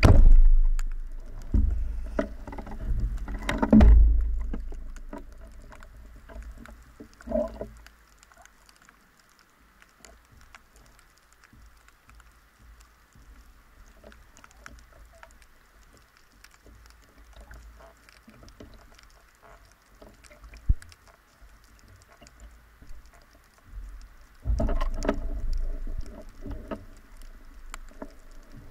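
Water sounds of a spearfishing dive: loud sloshing and bubbling for the first few seconds and again near the end, with faint crackling and ticking in the quieter stretch between.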